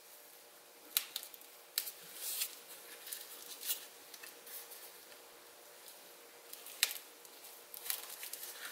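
Faint handling sounds of cardstock and burlap ribbon being worked by hand: a few short clicks and a brief rustle, mostly in the first four seconds, with one more click near seven seconds.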